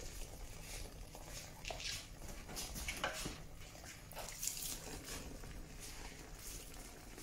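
Soft irregular squelching and scraping of wet sawdust-and-paper pulp being scooped and packed into a hand-lever briquette press, a few short rustles each second.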